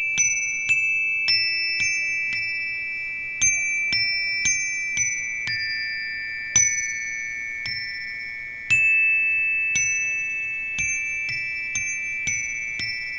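Metal chimes struck at uneven intervals, high ringing notes that sustain and overlap one another.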